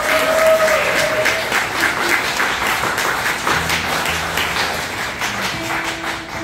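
Audience applauding, the clapping thinning out as it goes. From about halfway through, single acoustic guitar strings ring out as they are plucked while the guitarist checks her tuning.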